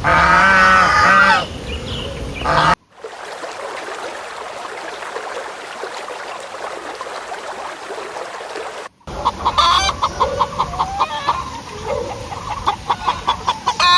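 A goose honking loudly for about a second and a half, then several seconds of a steady hiss-like background, then chickens clucking in quick repeated notes.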